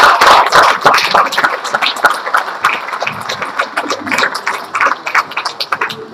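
Audience applauding, loudest at the start and thinning out toward the end.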